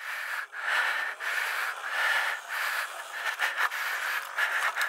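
Sur-Ron Light Bee electric dirt bike ridden slowly over rocky ground: drivetrain whine and tyre noise coming and going in short surges with the throttle, over a steady hiss.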